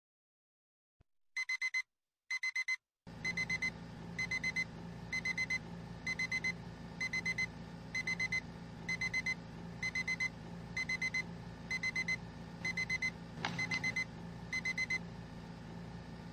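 Electronic alarm clock beeping: groups of four quick high-pitched beeps repeating roughly once a second, starting about a second in, over a low steady room hum.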